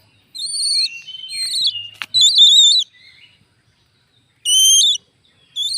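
Small owl, caught by its feet on bird lime, giving a series of shrill, wavering calls with short pauses between them: distress calls of a trapped bird being handled.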